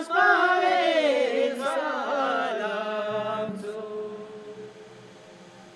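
Music: a solo voice chanting a melody that glides downward, then fades out over the last two seconds, with a low held tone coming in beneath it about three seconds in.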